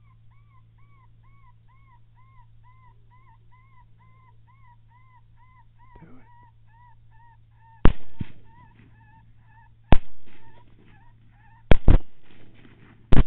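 Suppressed AR-15 rifle firing: five sharp cracks from about eight seconds in, roughly two seconds apart, with a close pair near twelve seconds. Under them, and alone before them, a steady string of high whimpering calls repeats about twice a second.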